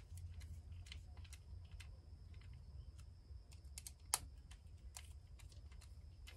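Faint, irregular small clicks and ticks of a hex screwdriver turning screws into a plastic RC transmission housing, with one sharper click about four seconds in, over a steady low hum.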